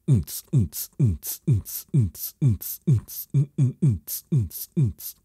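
A steady beat of deep kick-drum hits, each dropping quickly in pitch, about two and a half a second, with sharp hi-hat-like hits between them.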